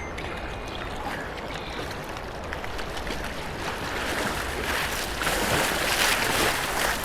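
River whitewater rushing and splashing around a kayak, growing louder from about five seconds in.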